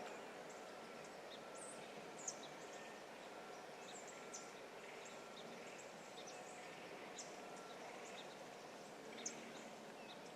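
Quiet woodland ambience: a faint steady hiss with short, high bird chirps scattered through it and two sharp ticks, one about two seconds in and one about nine seconds in.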